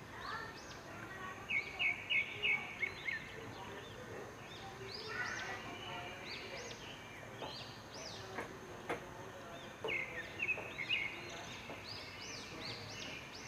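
Small birds chirping: quick runs of short, bright repeated notes in two bursts, one about two seconds in and one near ten seconds, among scattered single high calls. A couple of light taps sound in the middle.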